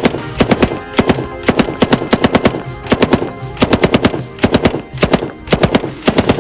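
M60 general-purpose machine gun firing belt-fed 7.62 NATO rounds in quick short bursts of a few shots each, one burst after another with brief pauses between.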